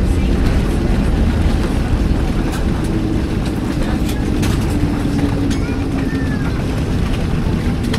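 Loud steady rumble inside the cabin of a Boeing 737-800 as it lands on the runway, with a faint tone that slowly falls in pitch from about three seconds in.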